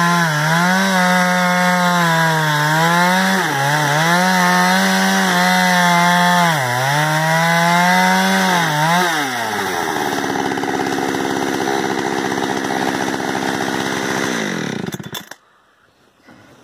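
Two-stroke chainsaw mounted in an Alaskan-style chainsaw mill, running at full throttle while ripping a log lengthwise, its pitch dipping and recovering as the chain bogs under load. About nine seconds in the pitch falls to a lower steady idle, and near the end the engine is switched off and stops suddenly.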